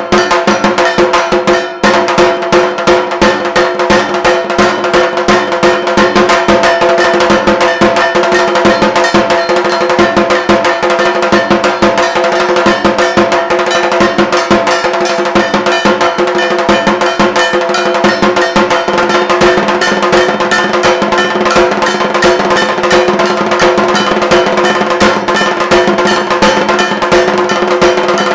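Dhak drums beaten with thin sticks in a fast, dense, continuous rhythm, with a metal kansar clanging along and a brief break in the beat about two seconds in. This is the dhak pattern played while the Durga idol is being made.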